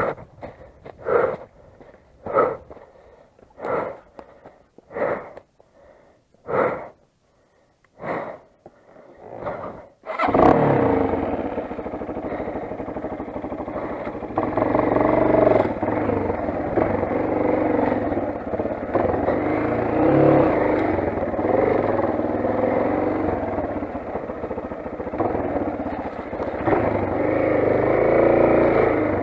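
A string of short, evenly spaced sounds about every second and a quarter. Then, about ten seconds in, a Motoland XR 250 motorcycle engine fires up suddenly and keeps running, its revs rising and falling a little.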